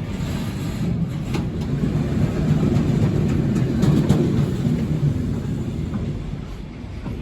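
A train rolling along the tracks in a station: a low rumble that swells to its loudest about four seconds in and then eases off, with a few light clicks over it.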